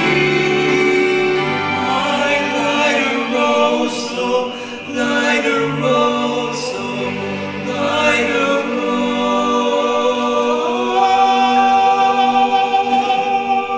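Male barbershop quartet singing in close four-part harmony. Near the end they settle on a long held chord.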